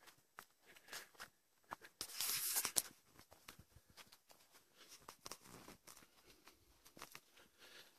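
Footsteps through dry grass and fallen leaves: scattered soft crunches and rustles. About two seconds in, a louder rustling swish lasts most of a second.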